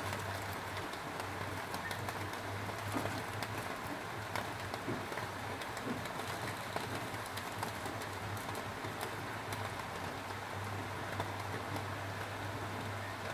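Foil-wrapped tilapia sizzling over a gas burner flame: a steady hiss with scattered small crackles and pops, over a steady low hum.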